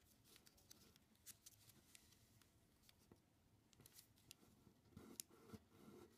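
Faint rustling and crackling of origami paper being folded and pressed flat by hand, with scattered light crinkles and a slightly louder rustle near the end.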